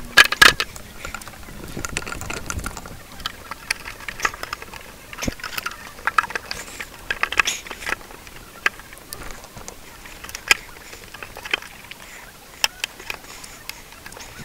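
Irregular clicks, knocks and rustling from a plastic air-intake duct and its rubber boot being handled and pushed back into place over the throttle body. The loudest knocks come right at the start.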